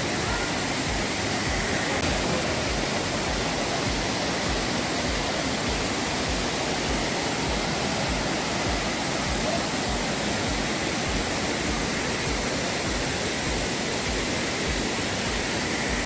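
Steady rush of white water as a rocky mountain stream cascades over boulders.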